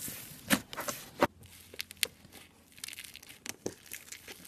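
Slime being handled, giving irregular crackles, crinkles and sharp pops, busiest in the first second and a half.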